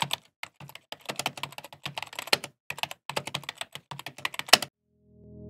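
Rapid, irregular keyboard typing clicks, a typing sound effect matched to text appearing letter by letter, ending with a sharper stroke just before they stop. Music begins to swell in near the end.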